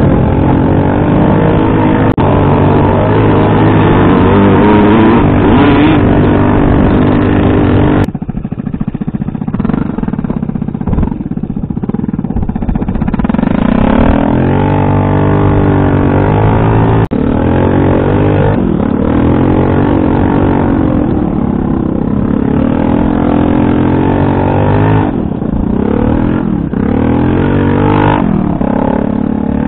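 Motor scooter engine running hard over rough ground, its revs rising and falling with the throttle. The sound turns suddenly quieter about eight seconds in, then climbs again with more revving.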